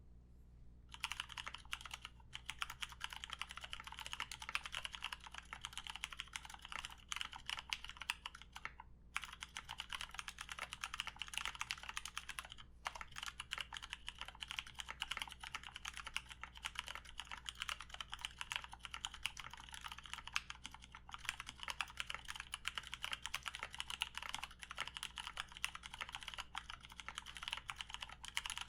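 Continuous fast typing on an SMkeyboards TKL mechanical keyboard with 68g Ergo Clear tactile switches, an acrylic plate and case, and ePBT 9009 PBT keycaps: a dense run of keystrokes starting about a second in, broken by a few brief pauses.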